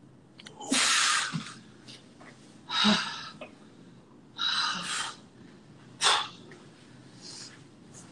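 A man's forceful breaths during a weight-training session: four sharp, loud puffs of breath, roughly every one and a half to two seconds.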